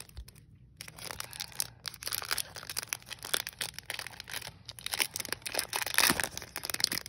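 Foil Pokémon booster pack wrapper crinkling and crackling as it is handled and opened by hand: a run of small crackles and rustles, louder about five to six seconds in.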